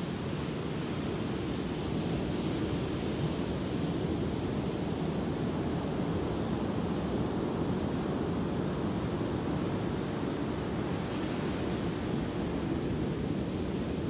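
Ocean surf breaking and washing up a sandy beach: a steady, unbroken wash of waves.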